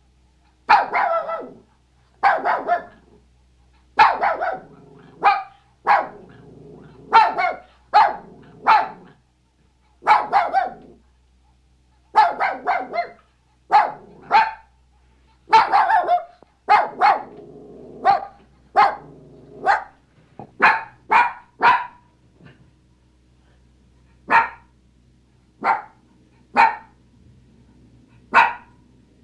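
Maltese, a small dog, barking in short, sharp barks, many in quick runs of two to four. The barks thin out to single ones, one to two seconds apart, in the last several seconds.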